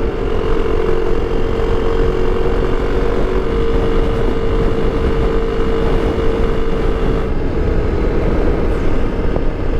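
Kawasaki KLX 300 single-cylinder four-stroke engine running at a steady cruising speed, a constant hum under heavy wind and road rush.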